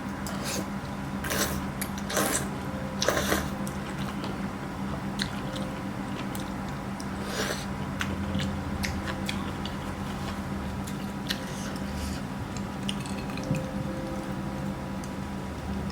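Close-miked eating sounds: wet chewing and smacking of food, with a few louder, crackly bursts of chewing in the first few seconds and another about halfway through, over a faint steady hum.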